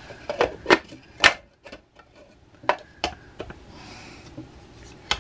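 Several sharp plastic clicks and knocks, spread unevenly across a few seconds, as the lid is fitted onto a food processor's bowl.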